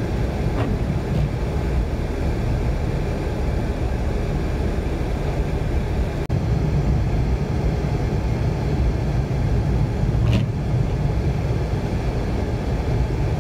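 Steady low road rumble heard from inside a car's cabin, driving on a snow-covered road.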